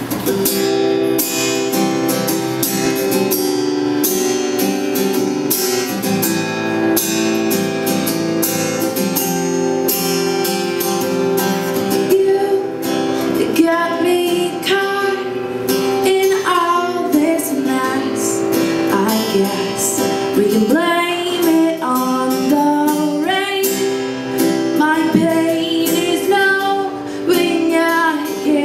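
Acoustic guitar playing a song's opening on its own. About twelve seconds in, a woman's singing voice comes in over it.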